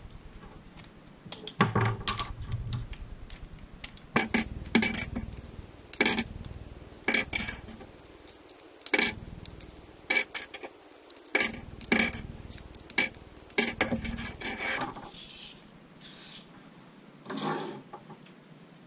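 Split ferrite beads being pried out of their plastic packaging with a pocket knife: a string of sharp, irregular plastic clicks and snaps, with hard clacks as the beads are set down on the workbench. The clicks stop about fifteen seconds in, leaving a brief rustle near the end.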